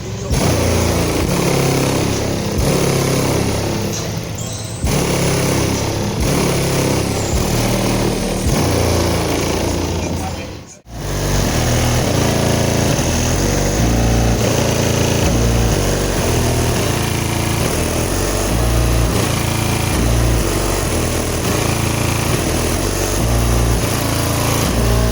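Bass-heavy music played very loud through four JVF 4.0 15-inch subwoofers in ported boxes tuned to 32 Hz, powered by a Crossfire 16,000-watt amplifier. Deep bass notes step from one pitch to the next. The music drops out briefly about eleven seconds in, then comes back.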